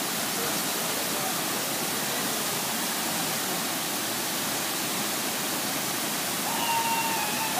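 Large waterfall making a steady rushing noise. Near the end, a long, high, held call rises over it.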